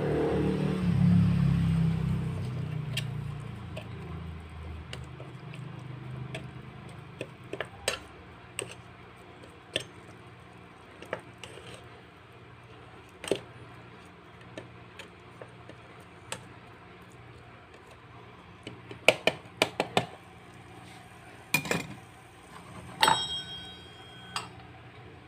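Small metal spoon clinking and scraping against a miniature stainless steel pan while food is stirred, in scattered sharp clicks with a quick run of them about two-thirds through. Near the end a small stainless lid is set on the pan with a ringing clink. A low rumble at the start fades out over the first few seconds.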